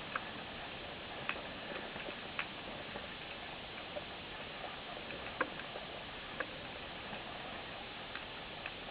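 Underwater ambient noise: a steady hiss with sharp, irregular clicks about once a second.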